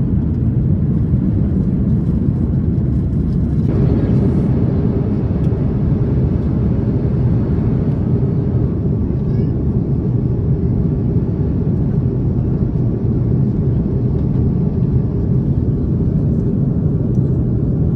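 Steady cabin noise of an Airbus A330-900neo in flight: the deep rumble of its Rolls-Royce Trent 7000 turbofans and the rush of air, heard from a window seat. It turns slightly brighter about four seconds in and then holds steady.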